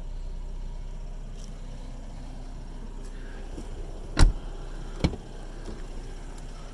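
A car door on a 2014 Mercedes-Benz C300 4Matic shuts with a single solid thud about four seconds in, followed less than a second later by a second, lighter knock, over a steady low hum.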